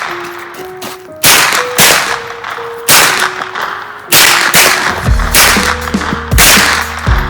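Gunshots at a shooting range, loud and sharp with echoing tails, roughly one a second. Background music with held notes plays underneath, and a bass line comes in about five seconds in.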